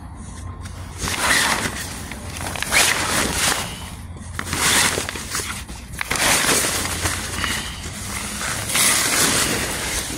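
Stiff striped awning fabric rustling and crinkling as it is bunched and handled, in about five loud swells.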